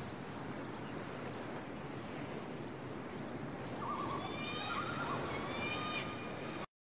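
Steady seaside ambience of wind and surf, with several short bird calls from about four seconds in; the sound cuts off suddenly near the end.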